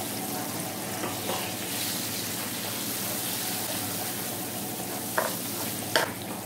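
Butter sizzling and bubbling in melted sugar in a frying pan, stirred with a wooden spatula. Two sharp knocks of the spatula against the pan come near the end.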